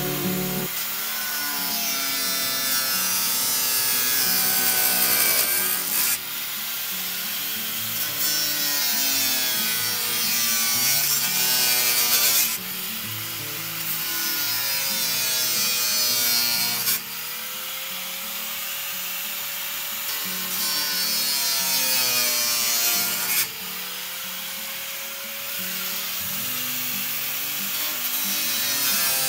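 A saw cutting, a continuous sawing noise. It breaks into several stretches with abrupt changes about every five or six seconds.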